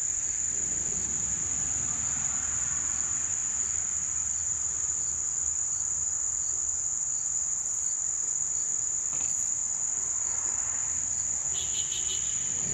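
Insects singing in a steady, unbroken high-pitched drone, with a faint low rumble underneath and a few light taps in the second half.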